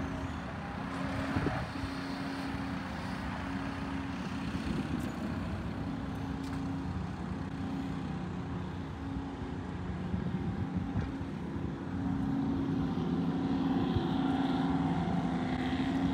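Diesel engines of heavy earthmoving machines, a Cat tracked bulldozer and a wheel loader, running in a steady low drone that gets louder about twelve seconds in.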